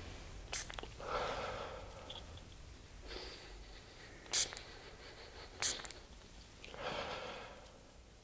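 Hand pump spray bottle of herbal anti-snoring spray giving three short, sharp squirts, mixed with breathy sniffs as the spray is drawn up the nostrils.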